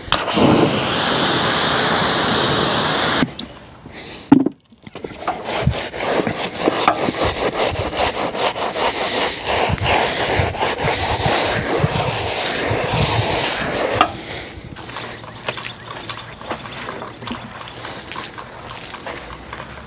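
Garden hose spray nozzle hissing for about three seconds. After a single knock, a stiff brush scrubs a soapy mower tyre in rapid scratchy strokes, stopping about fourteen seconds in.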